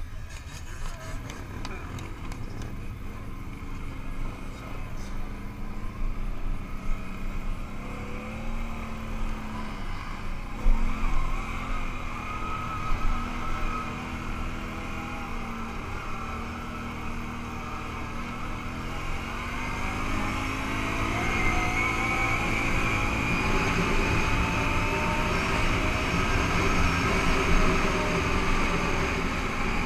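Can-Am ATV engine running as the quad pulls away and rides a dirt trail, its pitch rising and falling with the throttle over a low rumble. It grows louder and steadier about two-thirds of the way through.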